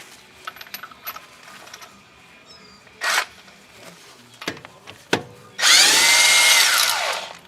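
Power drill run in two short bursts, then a longer run of about a second and a half whose pitch falls away as it winds down near the end.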